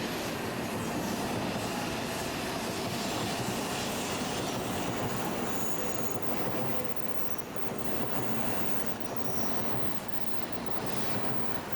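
Tokaido Shinkansen N700-series train moving slowly along the platform, running with a steady rumble and a few brief high-pitched wheel squeals.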